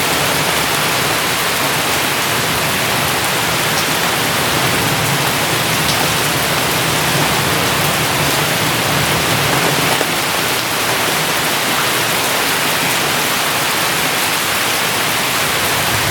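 Heavy rain falling in a steady, dense hiss, with scattered sharper drop ticks.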